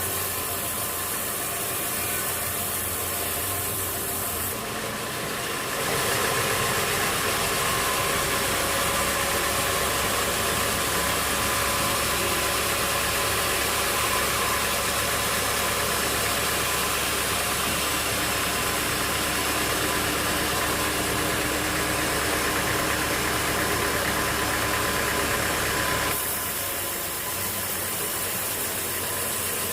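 Sawmill machinery running steadily with an engine-like drone and noisy rattle. It grows louder and fuller about six seconds in and drops back about four seconds before the end.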